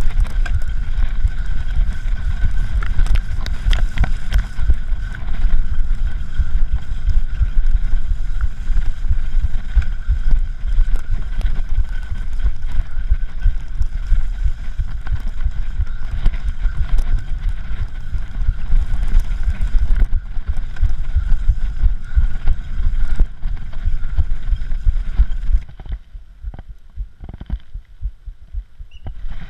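Wind buffeting and rattling on a handlebar-mounted camera as a cyclocross bike is ridden fast over bumpy grass, a continuous low rumble with scattered clicks. About 26 seconds in it drops much quieter.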